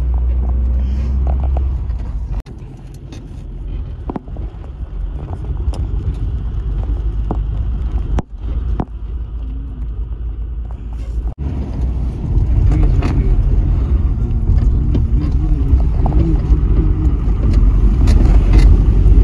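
Rumble of a moving car, with scattered knocks and rattles; the sound breaks off abruptly a few times and grows louder in the second half.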